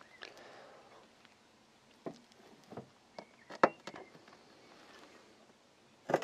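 Hollow concrete blocks handled and set down on top of a beehive: a scattering of short knocks and scrapes, the sharpest about three and a half seconds in and another just before the end.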